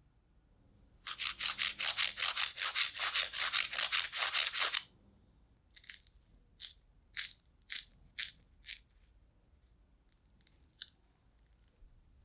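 Crispy fried potato sticks in a corn-flour coating being handled and broken by hand. A rapid run of dry crackles, about five a second, lasts nearly four seconds. It is followed by six separate crisp cracks and a few faint crackles near the end, the sound of the crunchy crust.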